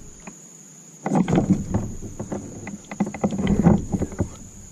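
Irregular knocks and rattles of fishing gear being handled in a plastic kayak, in two bunches starting about a second in and again around three and a half seconds, over a thin steady high insect drone.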